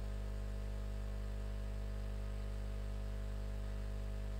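Steady electrical mains hum with a faint background hiss, unchanging throughout.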